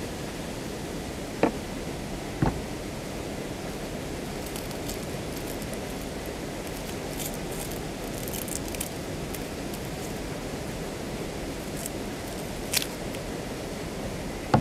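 A steady rushing noise, with a sharp knock about one and a half seconds in and another a second later, light rustling and clicking in the middle, and one more knock near the end.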